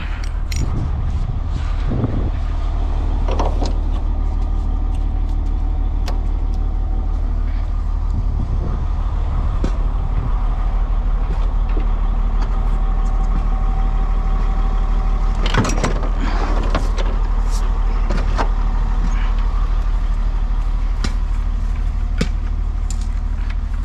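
Septic vacuum truck running steadily with a low, even hum. Scattered knocks and clanks of hose and tools being handled come over it, with a cluster about two-thirds of the way through.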